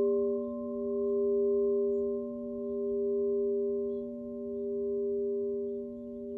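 Alchemical crystal singing bowls ringing on in a sustained hum of several steady pitches, the sound slowly swelling and fading about every two seconds.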